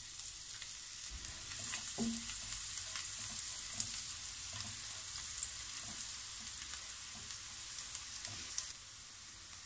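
Chopped garlic sizzling in melted butter in a hot pan, with a few scattered clicks and knocks. The sizzle drops in level near the end.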